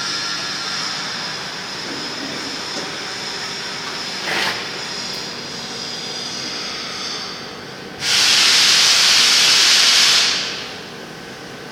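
Steady machine hiss with faint whining tones. A brief sharp hiss comes about four seconds in, and a much louder burst of hissing starts about eight seconds in, lasts about two and a half seconds, and fades away.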